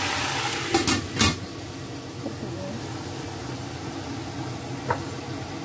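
Choy sum sizzling in a hot wok. About a second in, a domed stainless steel lid clanks down onto the wok twice in quick succession. After that the sizzling carries on quieter and muffled under the lid, with one small metallic tick near the end.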